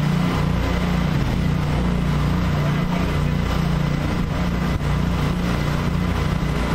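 Pressure washer running steadily under a rotary surface cleaner: an engine drone with a steady hiss of high-pressure water spraying the concrete under the cleaner's deck.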